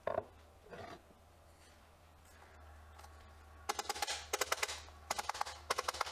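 Rapid runs of sharp clicks and light knocks as the parts of a head-tube bearing form tool are handled and pulled apart. There are two light knocks early, then two quick bursts of clicking in the second half.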